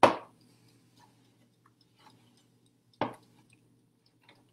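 Two sharp knife chops through roasted eggplant onto a cutting board, about three seconds apart, with a few faint taps between them. A faint steady hum runs underneath.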